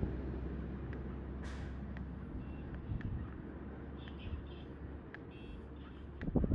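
Steady low rumble of city street traffic, with a short hiss about a second and a half in and a few faint, short high tones later on; the level jumps up sharply right at the end.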